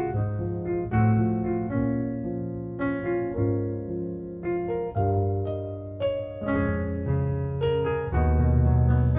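Slow, gentle solo piano music: chords and melody notes struck about once or twice a second, each ringing on and fading under a sustained bass.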